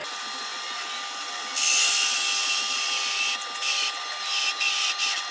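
Drill press motor running with a hole saw in the chuck. About a second and a half in, the saw bites into a thin wooden board with a loud, high-pitched cutting noise that holds for a second or two, then comes and goes in several shorter bursts as the cut is fed in.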